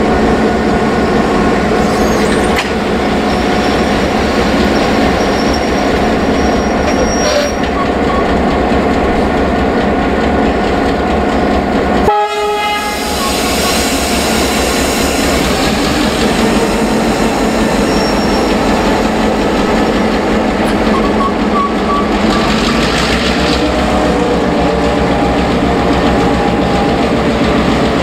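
Heritage EMD diesel-electric locomotives running, their two-stroke diesel engines giving a loud, steady pitched drone. The sound changes abruptly about twelve seconds in, followed by a brighter hiss for a few seconds.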